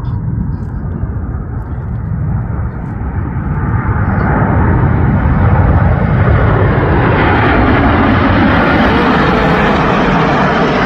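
Jet engine noise from Red Arrows BAE Hawk T1 jets, growing louder and brighter over the first four seconds as the aircraft approach, then staying loud.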